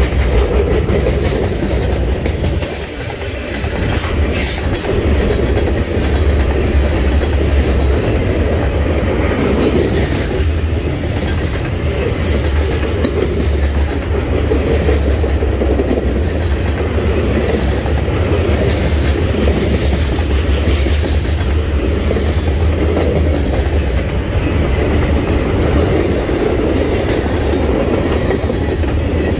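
Freight train cars rolling past, a steady heavy rumble with the clickety-clack of wheels over the rail joints.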